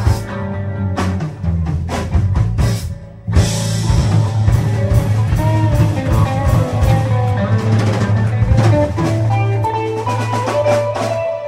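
Rock-and-roll band music in an instrumental stretch: drum kit, bass and electric guitar playing, with a short drop about three seconds in before the band comes back in.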